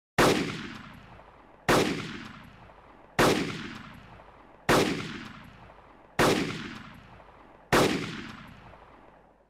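Six heavy, gunshot-like impact sound effects, one every second and a half, each hitting sharply and dying away slowly in a long echoing tail.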